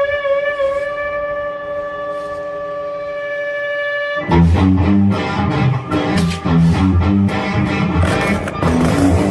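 Music: a long held, wavering pitched tone, then about four seconds in a band with strummed guitar and a steady beat comes in loudly.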